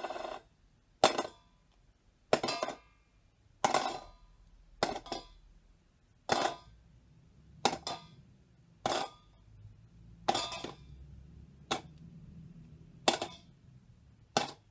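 Gold toy pirate coins dropped one at a time into a treasure-chest tub, about a dozen separate clinks spaced a little over a second apart, each with a short ring.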